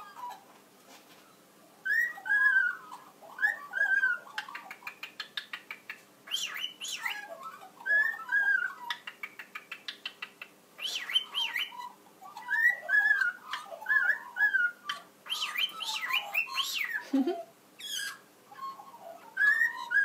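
Australian magpie and cockatiel singing together: a short whistled phrase with pitch glides, repeated over and over, mixed with quick runs of rapid clicking notes.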